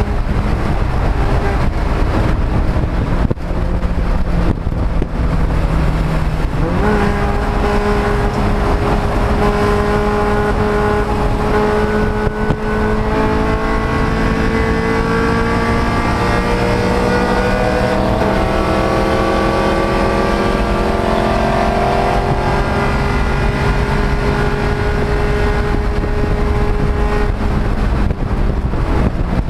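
Race car engine running hard on track under steady road and wind noise. Its pitch jumps up suddenly about a quarter of the way in, then the revs climb slowly and steadily for a long stretch before easing off near the end.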